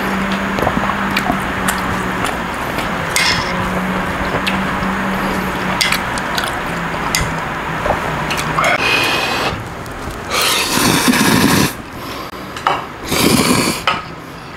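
Chopsticks and a ladle lifting and scraping noodles with scattered clicks against the dishes, then a person slurping instant ramen noodles in three long, loud slurps over the last five seconds.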